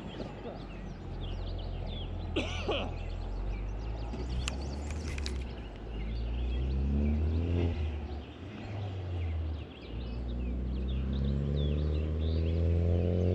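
Low engine rumble that twice rises in pitch, around the middle and again from near the end, as a motor vehicle accelerates, with birds chirping throughout.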